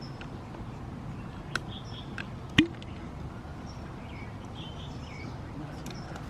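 Faint bird chirps over steady outdoor background noise, broken by a few sharp clicks, the loudest about two and a half seconds in.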